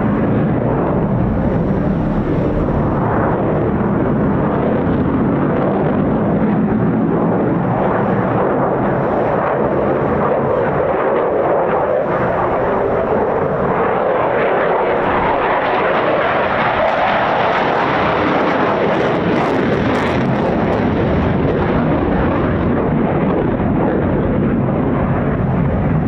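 Eurofighter Typhoon's twin jet engines, loud and continuous throughout, with a swell and rise in tone around the middle that then falls away.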